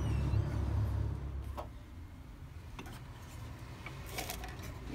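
A vehicle's low engine rumble from the street fades away over the first second and a half. After that it is quiet apart from a few small clicks and taps near the end, as small objects are handled.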